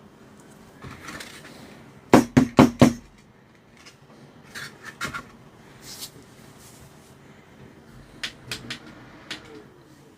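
Small tools and parts being handled on a workbench: a quick run of four sharp clicks about two seconds in, then scattered lighter clicks and taps.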